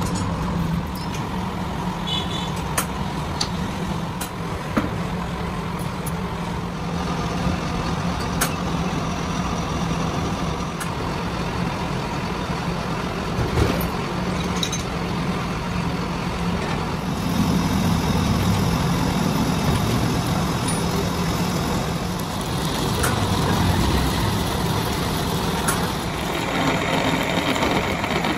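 Metal lathe running, with a steady motor and gearbox hum, while a cutting tool works a spinning iron bar. Occasional sharp ticks, and the sound grows louder and rougher in the second half.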